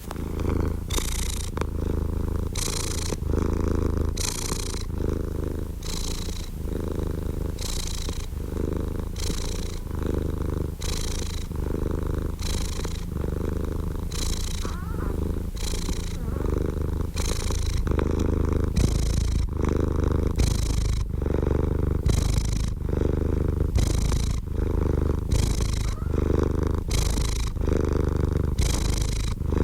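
Domestic cat purring steadily and continuously, a low rumble that swells and eases with each breath, about once a second.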